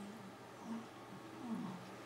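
A cat giving a few short, low meows, about three in quick succession.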